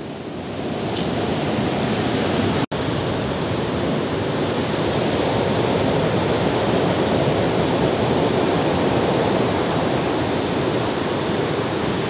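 Steady rushing of water, an even noise with no distinct strokes, swelling slightly over the first couple of seconds and cutting out for an instant about a quarter of the way in.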